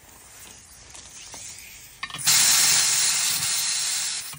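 Pressurized gas hissing at a tractor tire's rim while the bead is being seated: faint at first, then a loud steady hiss from about two seconds in that cuts off sharply near the end.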